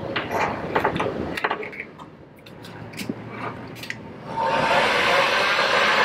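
A few sharp clicks and snips as heat-shrink tubing is handled and cut. About four seconds in, an electric heat gun is switched on and runs steadily with a blowing hiss and a faint whine, shrinking dual-wall heat shrink onto a battery lug.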